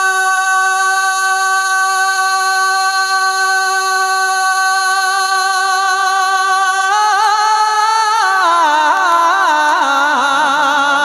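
A man singing a naat unaccompanied into a microphone. He holds one long, steady high note for about seven seconds, then breaks into wavering, ornamented runs that slide down in pitch toward the end.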